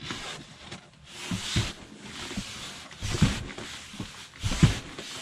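Cardboard and packing material rustling and scraping as a child crawls through a large cardboard box, with a few soft bumps and low grunts.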